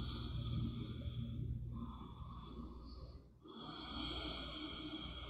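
A person breathing slowly and audibly: long drawn breaths, with a brief pause about three and a half seconds in.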